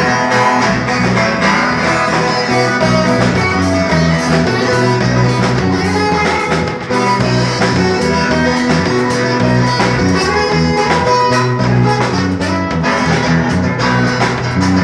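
Acoustic guitar (violão) played to imitate the ringing sound of a viola caipira: continuous plucked melody over sustained bass notes, with a brief drop in level about seven seconds in.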